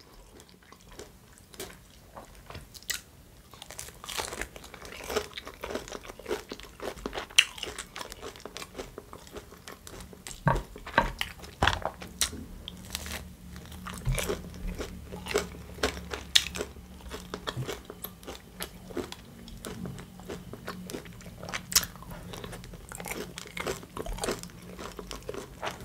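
Close-miked eating: biting into and chewing a battered chicken nugget, with many short, irregular crunches and chewing sounds.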